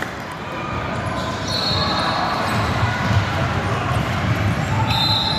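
Basketball bouncing on a hardwood gym floor, with voices echoing around the hall. Two brief high-pitched tones come through, about a second and a half in and again near the end.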